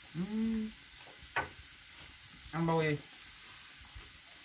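A woman makes two short wordless hums, the first just after the start with a rising pitch and the second about two and a half seconds in, over a steady hiss. A single light knock falls between them.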